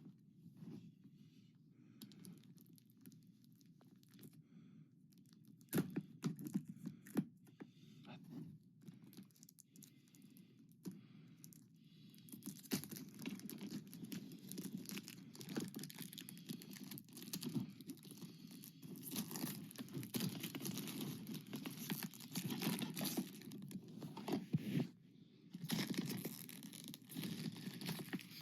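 Plastic wrapping being torn and crumpled off a DVD case: scattered clicks and rustles at first, then dense continuous crinkling from about halfway through.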